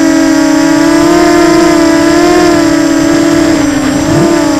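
Brushless motors and propellers of a small FPV quadcopter whining steadily, picked up by the camera on the craft itself; the pitch wavers with throttle, dipping slightly near the end and climbing again.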